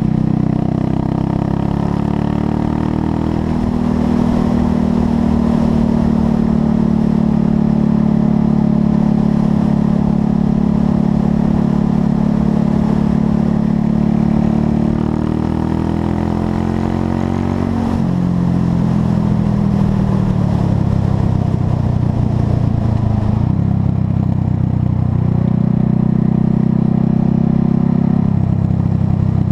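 Buell Blast's single-cylinder engine running under way on its freshly rejetted carburetor. The engine note holds steady for the first half, falls away a little past halfway as the bike slows, then climbs again near the end.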